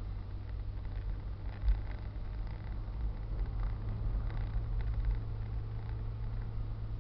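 Steady low rumble of a car driving, engine and tyre noise heard inside the cabin, with a brief thump about two seconds in and faint light rattles.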